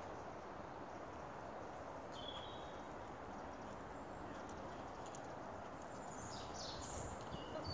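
Steady outdoor background noise with a distant horse trotting on the arena surface. A bird chirps briefly about two seconds in, then gives a few quick falling chirps near the end.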